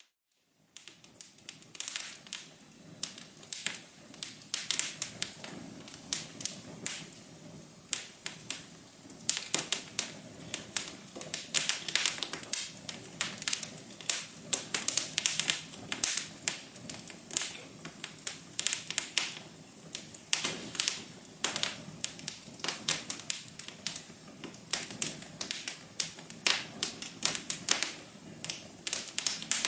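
Wood fire crackling in a fireplace: dense, irregular sharp pops and snaps over a soft low hum, after a brief dropout to silence at the very start.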